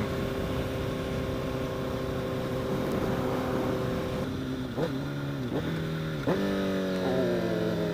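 Honda CBR1000RR's inline-four engine running steadily under riding, then three quick downshifts about five to six seconds in, the revs dipping and jumping back up with each gear change before settling at a new steady pitch.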